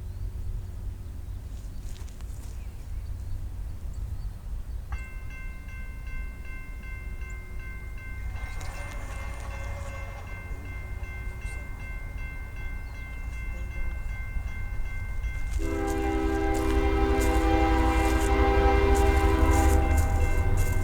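A CSX ES40DC diesel locomotive approaches with a low rumble that grows louder, and its horn sounds briefly about eight seconds in, then again loud and long for the last five seconds. A grade-crossing bell rings steadily from about five seconds in.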